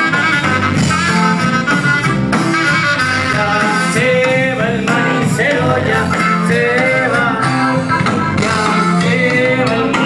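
Live band playing a Latin dance tune with singing, loud and steady throughout.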